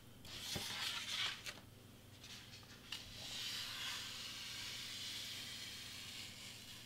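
Craft knife blade drawn steadily through foam board, a continuous scraping hiss that starts about three seconds in. Before that come short scuffs as the board is slid and turned on the cutting mat, and a single click.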